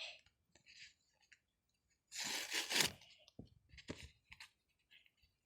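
Paper being torn and crinkled as a handmade paper gift packet is opened by hand: short rustles, with the loudest tearing about two seconds in and a few smaller rips after it.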